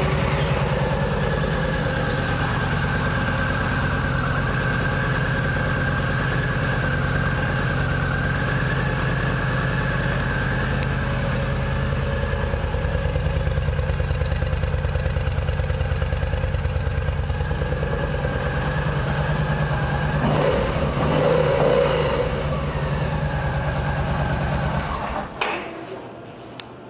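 A Yamaha V Star 950's air-cooled V-twin idles steadily just after starting. Its sound swells briefly about 21 seconds in, and the engine is switched off near the end.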